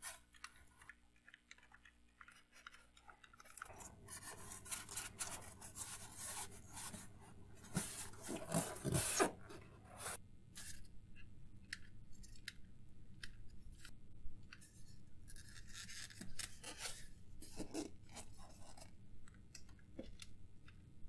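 Faint scratching, rubbing and clicking of extruded foam blocks being handled, hot-glued and pressed into place, densest about four to ten seconds in and sparser after.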